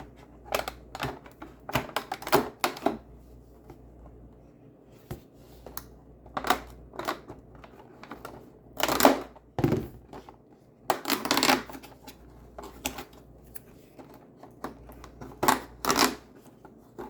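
Cardboard advent calendar doors and small packaging being pried open and handled by hand: irregular clicks, taps and rustles, loudest about nine and eleven seconds in.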